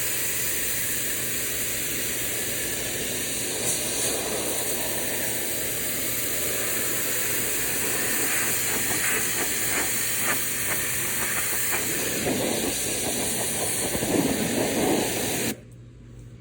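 Kranzle K1122TST pressure washer spraying a fence: a steady hiss of high-pressure water striking the surface. The spray cuts off suddenly near the end.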